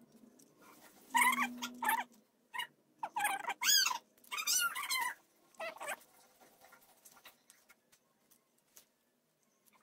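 An animal calling: about six short, high-pitched cries, each rising and falling in pitch, between about one and six seconds in.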